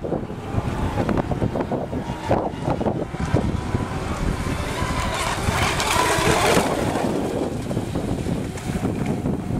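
Wind buffeting the microphone over the running of several radio-controlled electric racing boats (6S LiPo class). The boat noise swells for about a second and a half past the middle.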